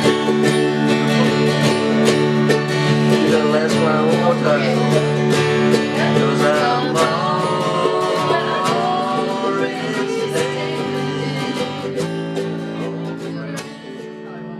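Acoustic guitars and other plucked strings playing a tune together, with a wavering melody line over the strummed chords; the playing dies down near the end.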